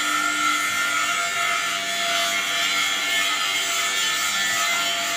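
A steady mechanical whine with several held tones and a rough, rubbing noise, from a motor-driven power tool or machine running in the workshop.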